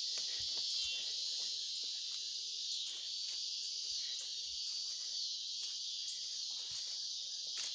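Chorus of crickets, a steady high-pitched trilling, with faint footsteps of someone walking.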